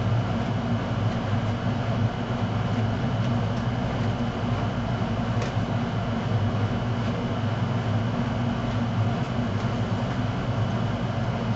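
Steady whir of a fan or blower motor with a low hum, running without change, and a faint click about five seconds in.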